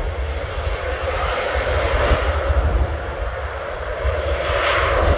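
Jet engines of a large twin-engine business jet on the runway: a steady whine over a low rumble, swelling about two seconds in and again near the end.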